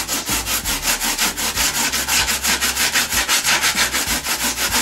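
Stanley Surform small handheld planer scraping pink foam in quick, even back-and-forth strokes, several a second, shaving it smooth for final contouring.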